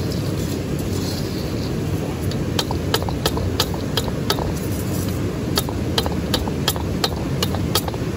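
A slotted metal skimmer scooping and sifting roasting kernels through hot sand in a steel wok. From about two and a half seconds in there is a run of sharp clicks, about two a second, as the skimmer and kernels knock against the metal. A steady low rumble runs underneath.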